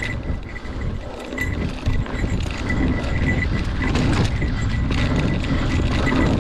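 Mountain bike rolling fast down a dirt trail: steady wind rumble on the microphone, with the tyres crunching over dirt and leaves and the bike rattling over bumps.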